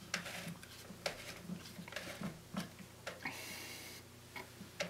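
Faint, irregular small clicks and ticks, about two a second, as a screwdriver tightens the jaws of a 3D-printed plastic rod-lathe chuck around a fishing rod handle, with a faint steady hum underneath.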